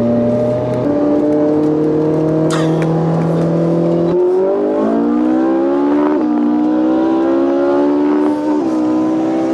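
Ferrari 458 Italia and turbocharged Suzuki Hayabusa engines accelerating hard side by side through the gears. The pitch climbs and drops back at each upshift, several times, with a sharp crack about two and a half seconds in.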